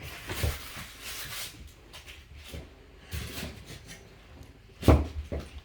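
Rustling and knocking handling noises, with one sharp knock near the end.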